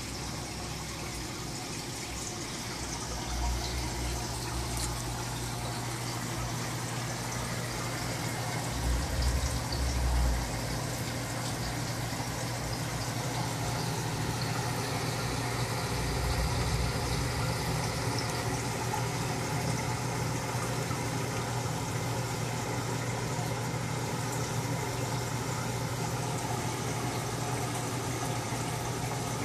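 A steady low hum with a faint hiss over it, broken by three brief low rumbles.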